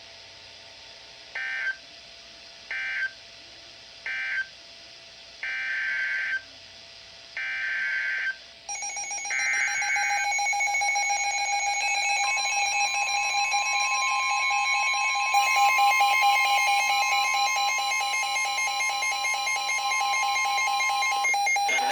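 Emergency Alert System data bursts: three short buzzy bursts about a second and a half apart, the end-of-message code closing one warning, then three longer header bursts opening the next. From about nine seconds in, a loud steady two-tone attention signal sounds, with another tone joining a few seconds later, until just before the end.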